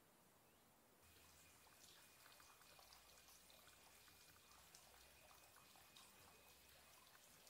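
Near silence: faint outdoor ambience. After a cut about a second in, it holds many small ticks and a faint steady high tone.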